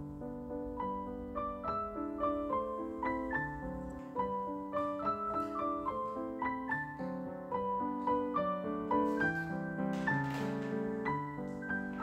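Solo piano music: a flowing run of single notes over held chords at an even pace.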